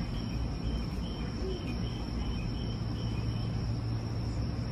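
Steady low hum from 209-series electric trains idling at the platform, with insects chirping in short, high, repeated calls over it.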